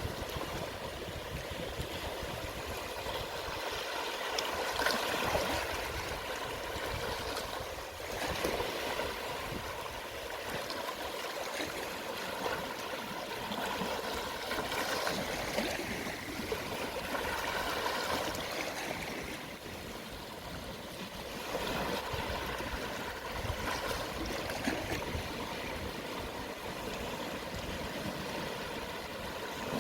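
Gentle sea waves washing onto the shore at low tide, a steady wash that swells and eases every few seconds as each small wave comes in.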